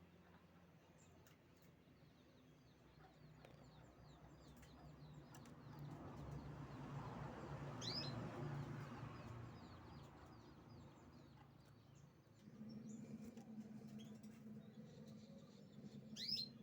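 Canary singing faintly in rapid runs of short, high chirps, with two louder sweeping calls, one about halfway through and one near the end, over a low background hum.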